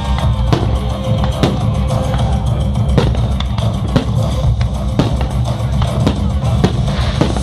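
Loud music with a heavy drum beat and sharp strikes about once or twice a second.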